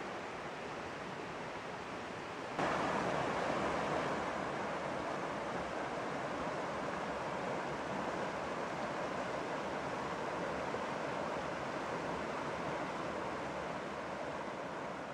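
Rocky woodland creek rushing over boulders in small cascades, a steady rush of water that grows louder about two and a half seconds in.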